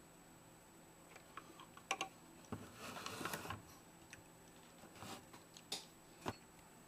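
Faint, scattered small clicks and taps of a screwdriver and wires being handled in a clear plastic project box, with a brief rustle about three seconds in.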